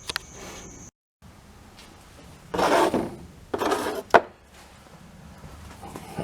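Two short scraping noises from small parts being handled, then a sharp click. A steady high-pitched tone cuts off near the start.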